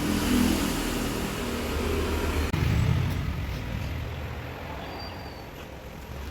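Eureka Forbes Robo LVAC Voice Pro robot vacuum cleaner running steadily as it drives back toward its charging dock. About two and a half seconds in, the high hiss drops and a lower rumble swells briefly.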